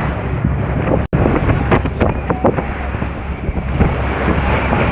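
Wind buffeting the microphone over the sound of sea waves, with a brief dropout about a second in.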